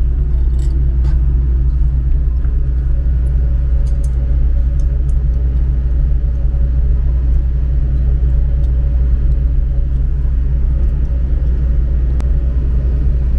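Steady low drone of a ship's engine and machinery, with a few faint clicks of small metal parts being handled.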